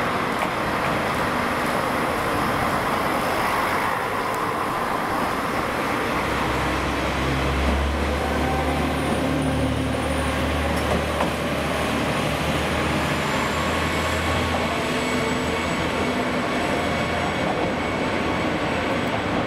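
KiHa 147 and KiHa 47 diesel railcars pulling out and running past, the diesel engines under power. A deep engine drone is strongest from about a third of the way in until about three quarters through, while the cars pass closest.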